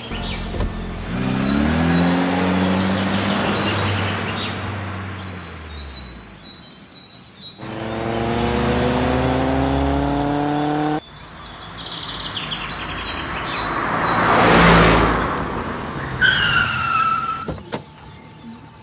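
Car engine sound effects: an engine revving up with rising pitch, then a second rev that starts and stops abruptly, followed by a swelling whoosh like a car passing. A short high squeal comes near the end, with faint bird chirps in the background.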